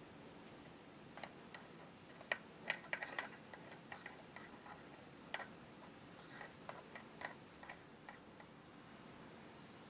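Small plastic toy pizza pieces clicking and tapping against a toy plastic frying pan as they are fitted into place: irregular light clicks, busiest about two to three seconds in, then sparser taps.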